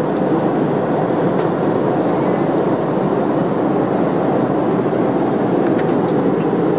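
Steady low rush of airliner cabin noise from the engines and airflow, with a couple of faint clicks near the end.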